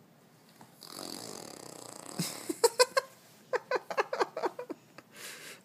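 A baby blowing a raspberry with her lips, a buzzing fart noise lasting about a second, followed by a quick run of short squeaky sounds and a brief breathy puff near the end.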